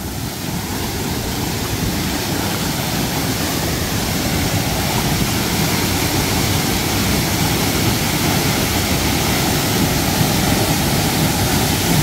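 Waterfall plunging into a deep pool at its base: a steady, unbroken rush of falling water, growing a little louder over the first few seconds.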